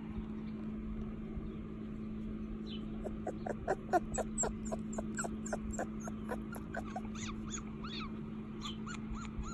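Australian Shepherd puppy whimpering in a run of short, high squeaks, about three a second, starting a few seconds in and going on to the end.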